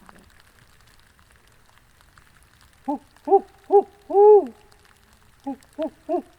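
Barred owl hooting: two phrases, each three short hoots followed by a longer drawn-out hoot, the rhythm of its 'who-cooks-for-you' call.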